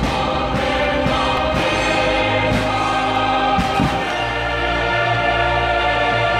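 Choral music with orchestra: a choir holding sustained chords, with several sharp hits at irregular moments.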